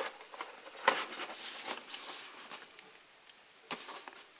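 Cardboard phone-box packaging being handled: a knock about a second in, then a second or so of rustling that fades, and a brief scrape near the end.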